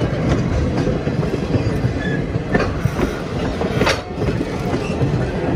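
A train rolling past close by, its wheels clacking over the rail joints, with scattered sharp clicks.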